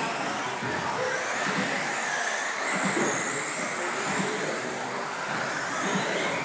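Radio-controlled off-road buggies racing: several motors whine, rising and falling in pitch as the cars accelerate and slow around the track.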